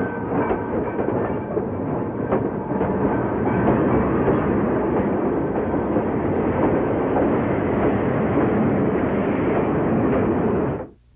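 Passenger coaches of a steam-hauled train rolling past close by, a steady loud rumble and clatter of wheels on rail, which cuts off abruptly near the end.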